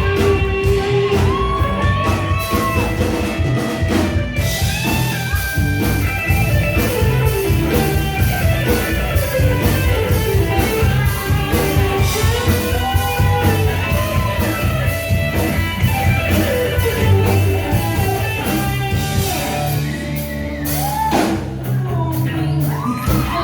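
Loud rock music with electric guitar and drum kit, a steady driving beat and a melody line that bends and slides.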